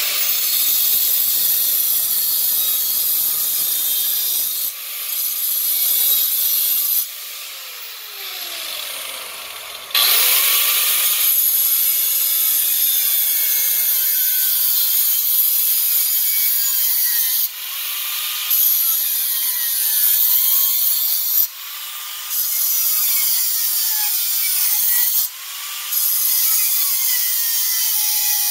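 Parkside angle grinder with a diamond cut-off wheel cutting through a steel hoe head: a harsh, high, continuous cutting noise, with the motor pitch sliding and the level dropping several times as the wheel eases in and out of the cut, longest about a quarter of the way in.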